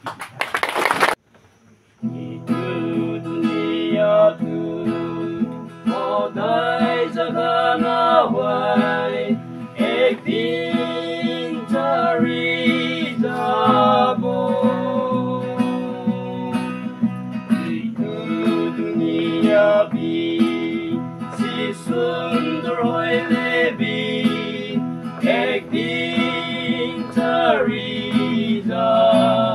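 A brief loud burst of noise, a moment's silence, then a song with acoustic guitar and a singing voice over a steady bass.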